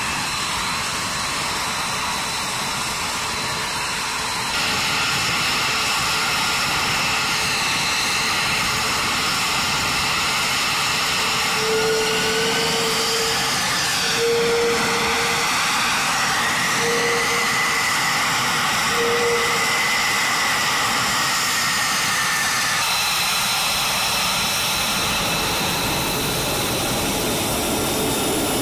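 Twin Pratt & Whitney F119 turbofans of an F-22A Raptor running at taxi power: a steady jet roar under a high whine, with whistling tones that slowly slide down and back up as the aircraft moves. The sound shifts abruptly about four seconds in and again near the end, and four short low beeps sound midway.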